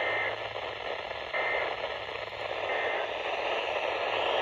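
EAS end-of-message data bursts: three short, high digital warbles about a second and a third apart, heard through a radio receiver over steady static hiss, marking the end of the alert.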